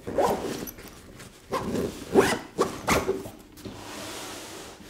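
Zipper of a camera backpack pulled shut in several quick strokes, followed by a softer fabric rustle as the bag is turned around.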